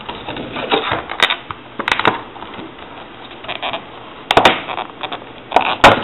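Plastic packaging being handled and opened, with irregular crinkling and sharp cracks, loudest a little past four seconds and again near the end.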